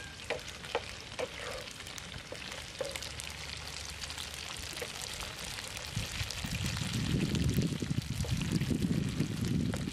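Tofu cubes sizzling in hot oil in a frying pan, a steady hiss with a few light taps in the first couple of seconds. From about six and a half seconds in, a louder low rumbling noise joins the sizzle.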